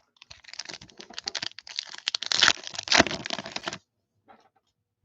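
Foil wrapper of a baseball card pack being torn open and crinkled. It is a dense run of crackles lasting about three and a half seconds, loudest shortly before it stops.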